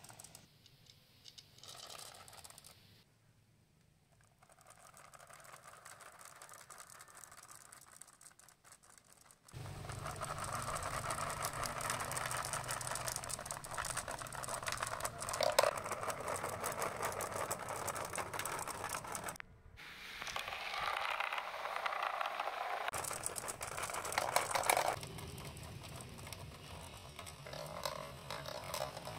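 Many glass marbles rolling in a line through wavy clear plastic tubing, a dense rattle of small clicks as they knock against each other and the tube walls. The rattle is quieter for the first ten seconds, then louder, with sudden jumps in level.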